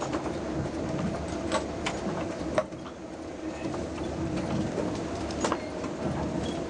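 Boat engine running steadily, a droning hum heard inside the cabin, with scattered sharp clicks and knocks, the loudest about two and a half seconds in and again near five and a half seconds.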